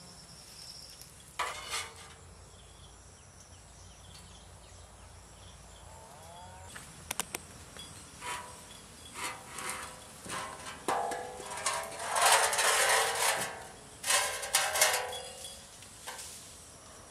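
Metal cooking utensils clinking and scraping against a pan, with scattered clicks at first and a busier, louder run of strokes in the second half.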